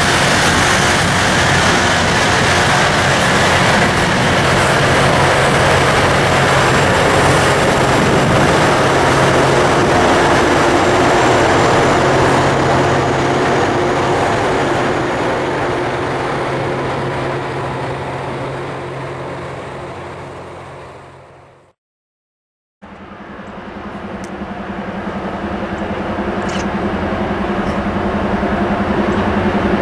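Loram rail grinder train passing close by: a loud, steady rush of diesel engines and rail machinery that fades away as the tail of the train goes past, then cuts to silence. After the cut, a low, steady diesel hum rises again as a Norfolk Southern freight approaches.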